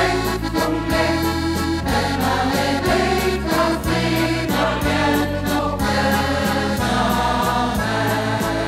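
Music: a song in Luxembourgish, sung over an instrumental backing.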